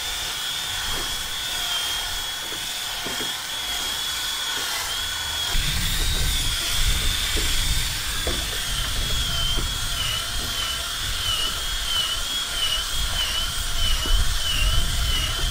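Cordless drill running under load, boring a long, dull paddle bit through a wooden dock piling, its motor whining steadily. About a third of the way in a low rumble joins in, and in the second half the motor's pitch wavers about twice a second.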